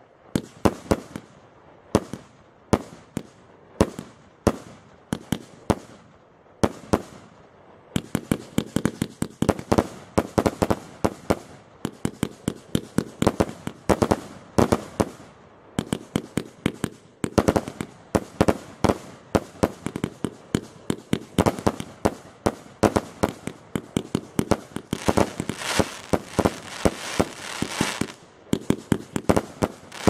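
A 100-shot, 1-inch firework cake firing shot after shot: sharp reports about two a second at first, quickening after about eight seconds into a dense, rapid run. Near the end a stretch of crackling joins the shots.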